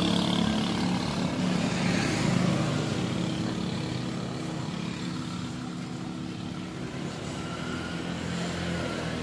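Motorcycle engine idling steadily, a little quieter in the middle and rising again near the end.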